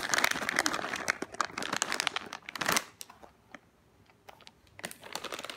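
A plastic bag of cat treats crinkling and rustling as it is handled, dense crackling for the first three seconds or so, then a few faint crackles near the end.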